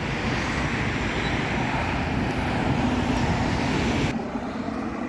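Steady road traffic noise, the rushing hiss of passing vehicles, which drops off abruptly about four seconds in.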